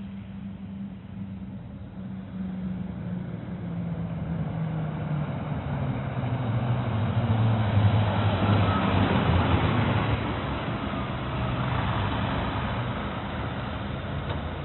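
Fire truck engine running as the truck moves off, its pitch sliding lower while the sound builds to a peak about eight seconds in, then eases off. No siren is sounding.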